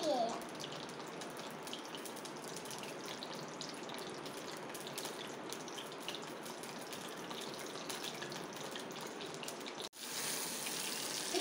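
Hot cooking oil sizzling steadily with an even hiss, the sound of chicken pieces deep-frying. After a brief break about ten seconds in, the sizzling comes back a little louder as coated chicken goes into the oil.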